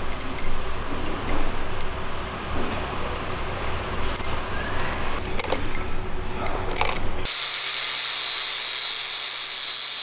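Small steel valve parts from a diesel cylinder head (valves, springs and keepers) clinking and clicking against metal and each other as the head is stripped. About seven seconds in this gives way to a steady motor whir with a constant high whine.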